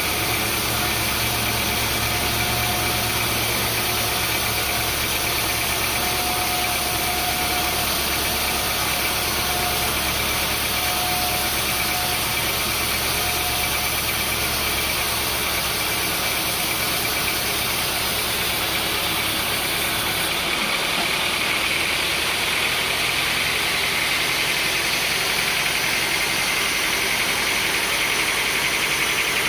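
Sawmill machinery running steadily with a loud, even mechanical noise and a low hum; about two-thirds of the way through, the low hum cuts out suddenly and the higher part of the noise changes, as the machine changes its working state.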